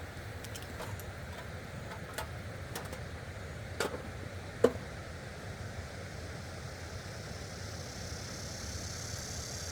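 Steady rushing of a stream, with a few short sharp clicks and knocks over it, the loudest about four and a half seconds in.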